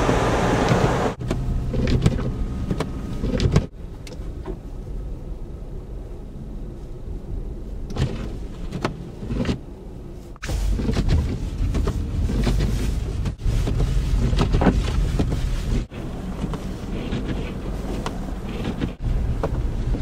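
Road noise inside a moving car on snow-covered streets: a low engine and tyre rumble with a hiss on top. It comes in several short clips cut together, the level jumping up or down at each cut.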